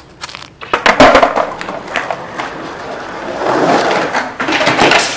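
Skateboard riding the concrete walls of an empty swimming pool: a few sharp clacks of the board and wheels in the first two seconds, the loudest about a second in, then the wheels' rolling noise building as the skater carves up toward the coping.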